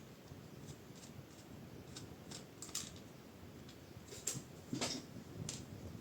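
Light clicks, taps and scrapes of hands and a small screwdriver working on a laptop's plastic bottom case as it is screwed back together, with the sharpest clicks a little past two seconds in and again between four and five seconds.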